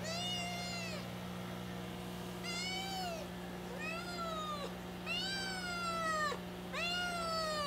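Kitten meowing repeatedly: five high, drawn-out meows, each about a second long, rising and then falling in pitch. The constant crying is that of a kitten in a strange home, which the owner puts down to the unfamiliar place or to her searching for her mother.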